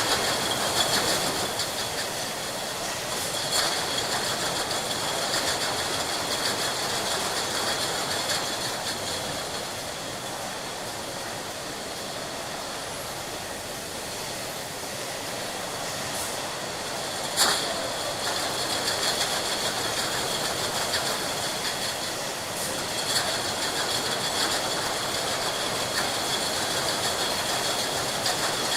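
Glass bottle factory production line: steady machinery clatter with glass bottles clinking against each other, over a steady high whine. A sharp glass clink stands out about seventeen seconds in, with smaller ones near four and twenty-three seconds.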